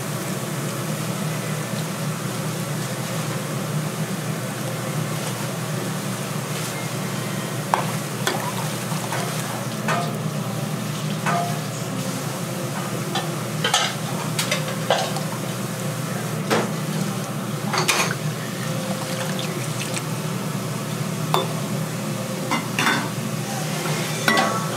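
Metal utensils and dishes clinking and knocking at a food stall: scattered sharp clinks, starting about a third of the way in, over a steady low hum.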